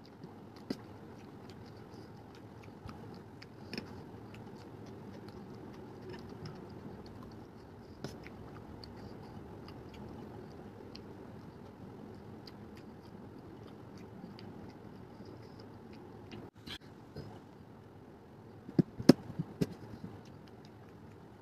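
Close-up chewing of chow mein noodles, with scattered sharp clicks of a metal fork against a steel plate. A quick run of louder clinks comes near the end.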